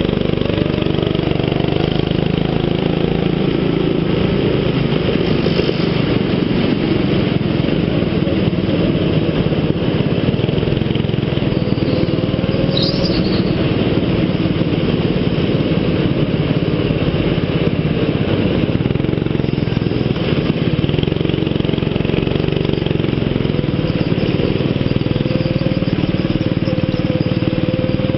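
Go-kart engine running steadily as the kart laps, heard close up from a camera mounted on the kart, with the engine tone rising briefly now and then.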